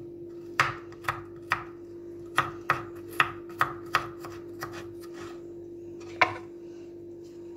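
Kitchen knife chopping a garlic clove on a wooden cutting board: about ten sharp knocks of the blade on the board, unevenly spaced, with a longer pause before the last one. A faint steady hum runs underneath.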